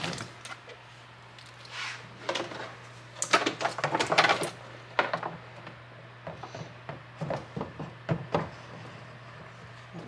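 Hard plastic parts clicking and knocking as a radio dash-mount panel is pressed into the dash opening for a test fit, busiest a few seconds in. A steady low hum runs underneath.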